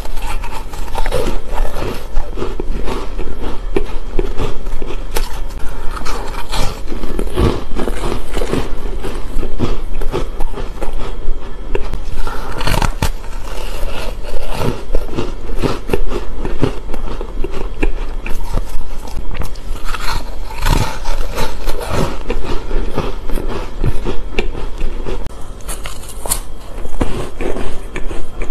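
Close-miked biting and chewing of hard frozen ice pieces: continuous crunching and cracking with many sharp snaps, over a steady low hum.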